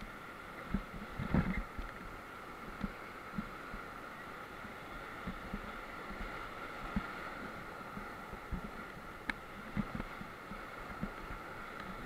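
White-water rapids rushing around an inflatable raft, a steady hiss broken by irregular dull low thumps, the strongest about a second and a half in.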